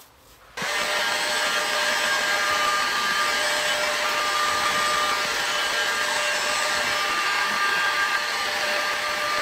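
Handheld electric heat gun switched on about half a second in, then running steadily: an even rush of blown air with a steady motor whine, blowing hot air onto plastic food wrap to melt it.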